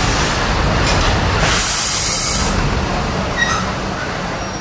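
Departing steam train, its last coach rolling past with a steady rumble of wheels on rail that slowly fades away. A loud hiss lasting about a second comes about a second and a half in.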